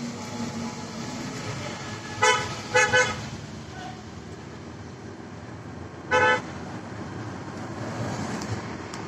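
Vehicle horn sounding in short toots: one about two seconds in, a quick double toot right after, and one more near the middle, over steady road noise heard inside a moving car.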